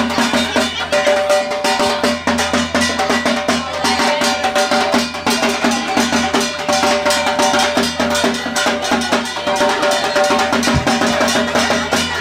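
Fast, continuous drumming on a large two-headed barrel drum, with a held melody line over it that breaks off and returns.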